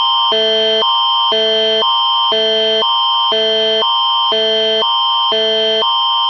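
Canadian Alert Ready emergency attention signal: a loud electronic alarm alternating between two chords every half second over a steady high tone, marking the start of a broadcast emergency alert.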